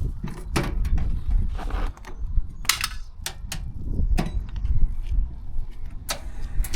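Irregular sharp clicks and knocks, a dozen or so, over a steady low rumble.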